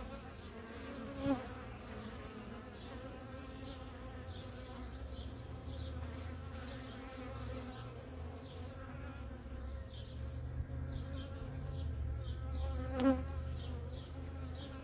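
Honey bees buzzing steadily as a crowded cluster on the hive, with two brief louder buzzes, about a second in and again near the end.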